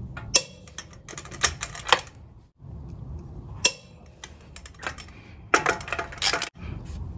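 Precision Instruments split-beam torque wrench and socket working on wheel nuts as each nut is brought to torque. A run of sharp metallic clicks, several in quick clusters, mixing the wrench's click-out with the socket clinking onto the nuts.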